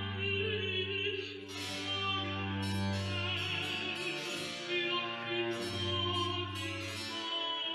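Early Baroque Italian opera music: long sustained bass notes under harpsichord continuo, with singing above.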